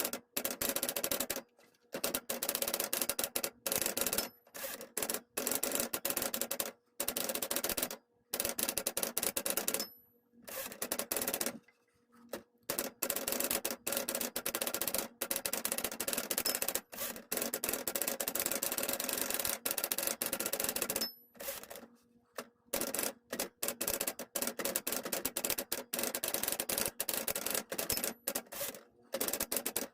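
Typing on a 1964 Sears Challenger II manual typewriter: quick runs of sharp key strikes broken by short pauses.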